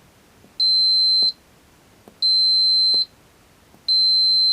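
Multimeter continuity buzzer beeping three times, each a steady high beep of just under a second, signalling continuity across the newly soldered key-fob button switch.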